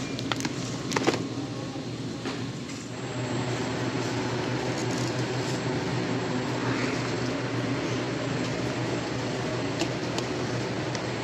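Steady hum of a large warehouse store's ventilation and refrigeration, with a few sharp crinkles of the plastic-wrapped meat package being handled about a second in.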